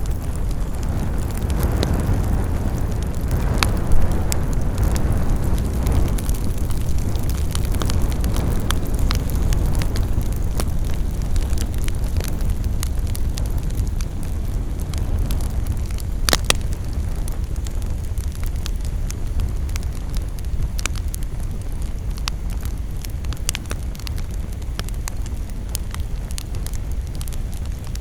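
Campfire burning: a steady low roar of the flames with frequent sharp crackles and pops of burning wood, a couple of louder pops about four seconds in and about sixteen seconds in.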